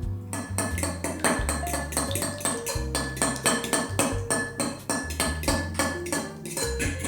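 Background music with a steady, quick percussive beat over held bass notes.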